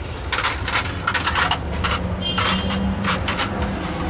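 Busy street-market ambience: irregular sharp clacks of kitchenware, about ten of them, over a low steady traffic rumble, with a faint hum joining about halfway through.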